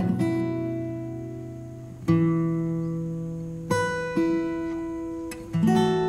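Background music: strummed guitar chords, each left to ring and fade, with a new chord every second or two.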